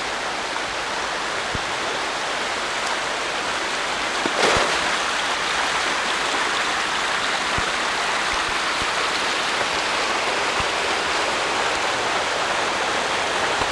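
Rushing water of a creek in flood, swollen by rain and melting snow, running steadily. A single brief knock about four and a half seconds in.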